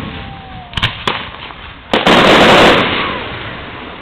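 Aerial fireworks shells bursting: a few sharp bangs in the first two seconds, then a louder, longer blast about two seconds in that lasts nearly a second and fades away.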